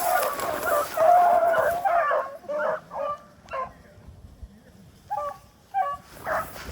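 Rabbit hounds baying while running a rabbit: a long wavering bawl for the first two seconds, then a string of short, separate barks.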